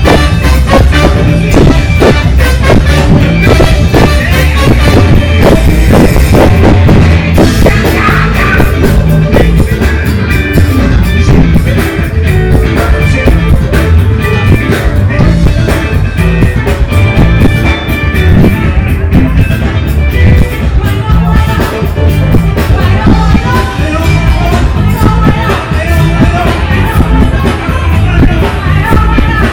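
Live funk band playing loudly, with a steady drum beat and heavy bass.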